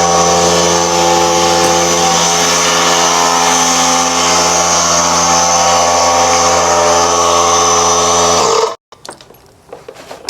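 An electric motor running steadily at one pitch, then shutting off about eight and a half seconds in, followed by a few light clicks and knocks.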